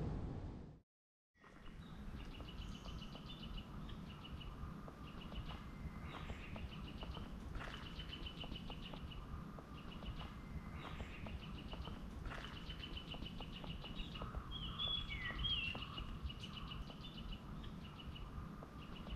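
Background music fades out in the first second. Then birds sing short phrases of rapid repeated chirps, again and again, over a low steady background rumble.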